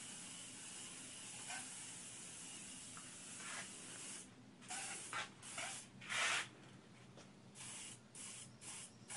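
Aerosol spray-bottle sprayer applying DuraCoat gun finish: a steady hiss for about four seconds, then a series of short spray bursts.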